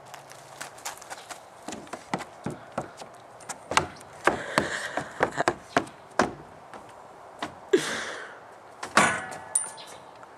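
Shoes and hands knocking and thudding on a plastic playground climbing wall and frame as someone climbs it: a long string of sharp, separate knocks with a few short scuffing rushes in between.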